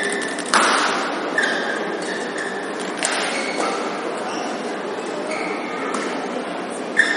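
Badminton rally: sharp racket strikes on the shuttlecock every second or two, the loudest about half a second in, with short high shoe squeaks on the court mat and a background murmur of the crowd.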